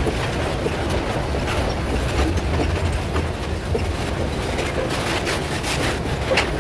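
Loaded freight cars of a metre-gauge grain train rolling past close by: a steady low rumble with repeated sharp knocks from the wheels on the track, and a louder knock near the end.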